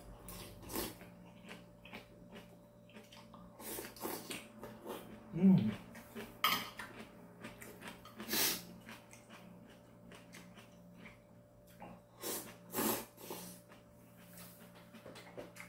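Ramen noodles being slurped and eaten from a bowl, with irregular slurps and breaths throughout. A brief low hum that falls in pitch comes about five and a half seconds in, over a faint steady background hum.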